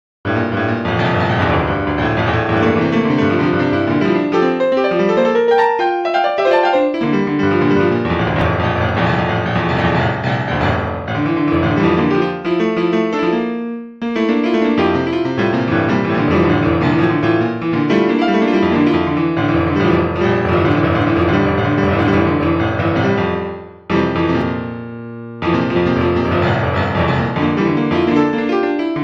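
Piano music, starting abruptly out of silence and running as a steady flow of notes, with two short breaks: one about halfway through and one a few seconds before the end.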